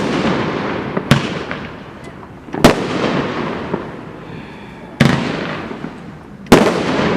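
Dominator "Fear Not" firework going off: four loud bangs about a second and a half to two and a half seconds apart, each followed by a fading crackle.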